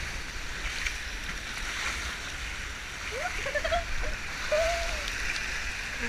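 Water rushing down a water-park tube slide as a two-person inner tube slides along its channel. A rider's voice gives short cries about three seconds in and again near five seconds.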